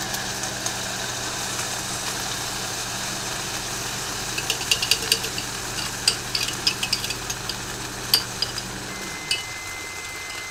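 Chicken tenders sizzling in a hot frying pan as jarred alfredo sauce is poured over them, with sharp crackling from about halfway through. Under it a microwave oven runs with a steady hum that stops about nine seconds in, followed by the microwave's beep, one long tone.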